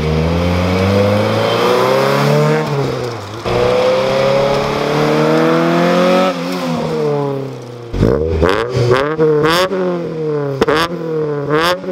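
A 2000 Honda Civic Si with a swapped-in B20B four-cylinder and an HKS Hi-Power exhaust accelerating past. The engine pitch climbs, drops once about three seconds in, climbs again and falls away as it passes. In the last few seconds the same exhaust is heard at close range as the engine is revved in quick repeated blips.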